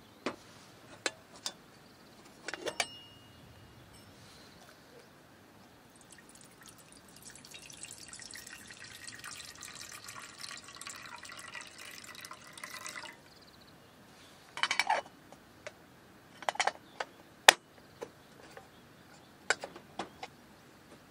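Water poured from a bottle into a metal kettle, a steady splashing pour lasting several seconds mid-way. Before and after it come sharp metal clicks and clanks as the kettle and its lid are handled, the sharpest about two-thirds of the way through.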